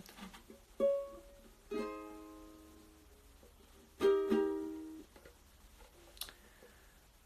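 Concert ukulele strummed in separate chords: a short first stroke, then two fuller chords about two seconds apart, each left to ring out for about a second. The second of these chords is the loudest.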